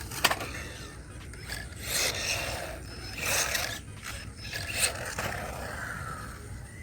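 Small electric RC truck (Haiboxing 18859A) driving hard, with rough scraping from its tires and drivetrain in several bursts about a second apart and a sharp knock of an impact just after the start.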